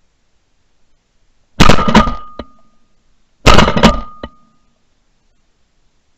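Two shotgun shots about two seconds apart, recorded at close range by a gun-mounted camera. Each shot is followed by a short, sharp click.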